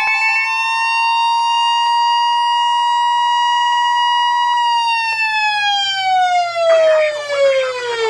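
A siren sounding at a steady high pitch, then winding down and falling steadily in pitch from about halfway through. Under it, a steady weather-radio alert tone cuts off just as the siren starts to fall, and a spoken warning message begins faintly near the end.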